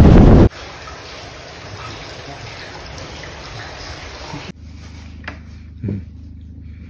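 Loud wind buffeting the microphone, cutting off abruptly half a second in; then a steady, even rushing noise for about four seconds, followed by a quieter low hum with a couple of soft knocks.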